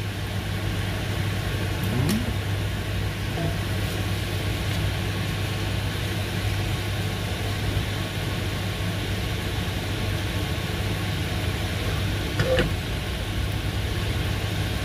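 Pieces of duck frying in their own fat in a cast-iron pan, left to brown undisturbed: a steady sizzle over a steady low hum, with a brief knock about two seconds in and another near the end.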